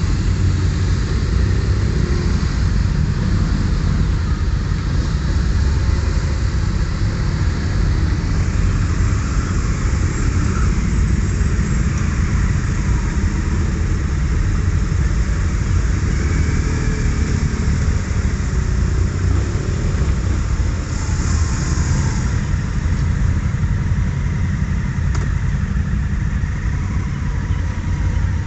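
Several motorcycle engines running at low speed and idling as a group of touring motorcycles pulls away one after another, a steady mixed engine rumble with small rises in revs.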